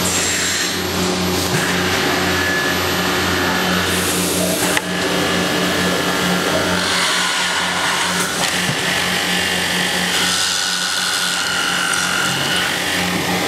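Multi-spindle wood boring machine running: a steady motor hum under drilling noise that swells and fades. A short burst of hiss ends in a sharp clack about five seconds in.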